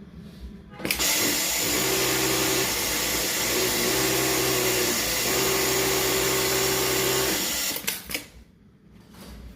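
A motor-driven machine runs steadily with a loud hiss over a low hum, starting suddenly about a second in and cutting off about seven seconds later.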